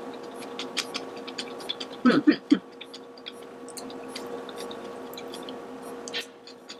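Close chewing of crisp blanched celery and bean curd sticks: a run of small crunchy clicks throughout, with a brief vocal sound about two seconds in. A faint steady hum runs underneath.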